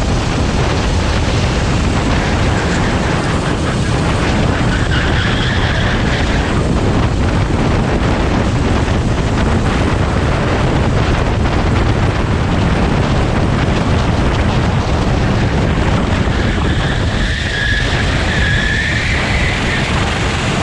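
Honda GX390 single-cylinder four-stroke engine of a Sodikart SR4 rental kart running under load on track, heard from onboard as a loud, steady engine noise.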